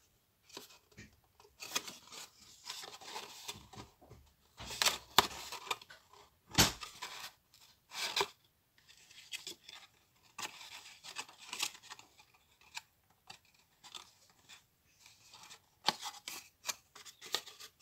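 Red cardstock box being handled and its glued sides pressed together by hand: irregular rustling and scraping of stiff card, with a sharp knock about six and a half seconds in.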